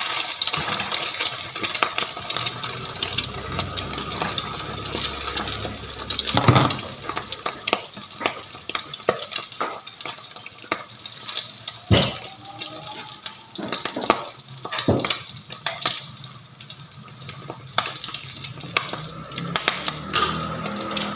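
Onion pancake with egg frying in oil in a pan, a steady sizzle, while a utensil scrapes and knocks against the pan again and again, a few knocks much louder than the rest.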